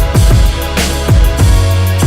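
Background music: an electronic beat with a heavy kick drum and sustained bass and synth notes.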